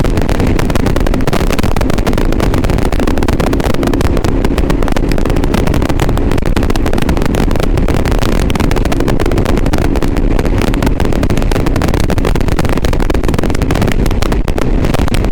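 Motorcycle riding noise recorded through a GoPro Hero 7 Black's external microphone: a loud, steady low rumble of engine and wind with constant crackling distortion. This is the bad sound the setup produces.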